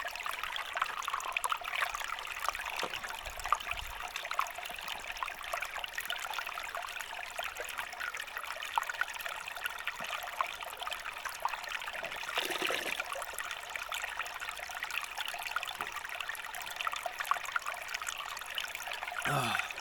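Small Highland stream trickling steadily over stones, with a short louder swell about two thirds through.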